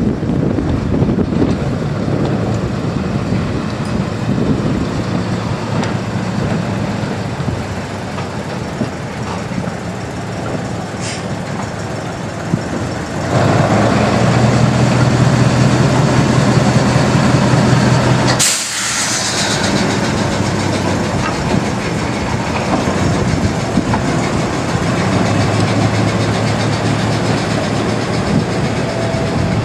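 British Rail Class 03 diesel shunter's Gardner eight-cylinder engine running steadily as the locomotive moves along the track. It gets louder as the loco passes close. About two-thirds of the way through there is a sudden short hiss of air, and the engine note drops.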